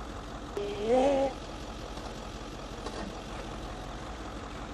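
A vehicle engine idling steadily while a trailer is backed down the ramp, with one short rising voice-like call about a second in.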